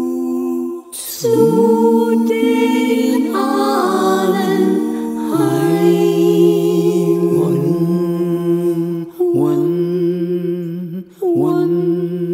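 Music: a cappella-style singing, several layered voices holding long notes, each phrase sliding up into its note. There are short breaks between phrases about a second, nine seconds and eleven seconds in.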